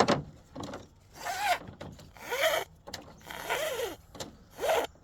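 A sharp knock, then a small cordless drill spun in four short bursts, its motor whine rising and falling each time as the trigger is squeezed and let go.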